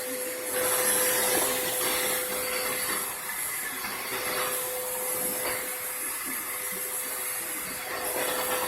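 Vacuum cleaner running with a steady whine and airy hiss, its loudness swelling about half a second in and then rising and falling slightly.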